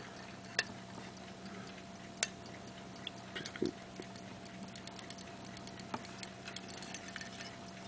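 Faint scattered ticks and clicks from a sterling silver hunter-case fusee pocket watch being handled, over a faint steady low hum.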